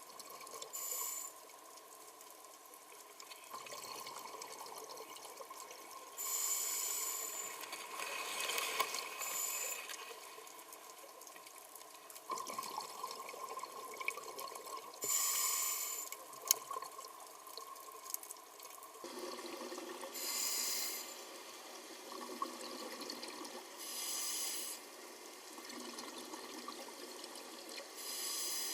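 Water bubbling and sloshing, with louder bursts of hissing bubbles every four to five seconds.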